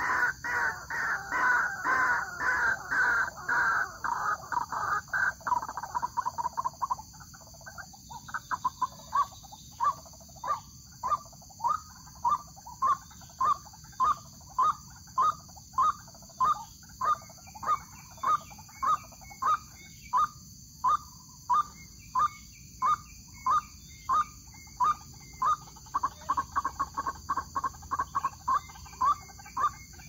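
White-breasted waterhen calls: a dense run of overlapping croaking notes for the first several seconds, then a long series of separate repeated notes, a little more than one a second, thickening again near the end.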